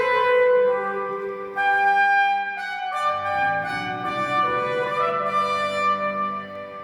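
Trumpet playing a slow melody of long held notes over soft accompaniment, with lower notes in the accompaniment coming in about three seconds in.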